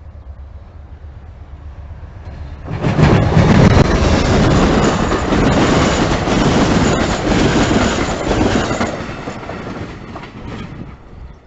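Amtrak passenger train passing close at speed, its wheels running loudly on the rails. A low rumble of the approach gives way abruptly to a loud rush about three seconds in, which fades from about nine seconds as the cars recede.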